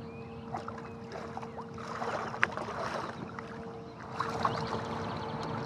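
Shallow water splashing and sloshing around a person's legs and a Tucktec folding kayak's hull as he stands up out of the kayak and steps in the water, with a sharp click about two and a half seconds in.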